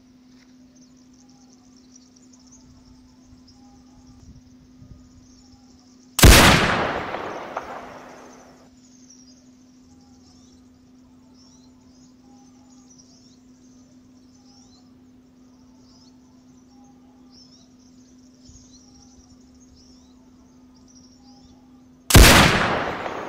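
Two rifle shots, one about six seconds in and one near the end, each a sharp crack that fades away over about two seconds. Between them, high faint chirping and a low steady hum.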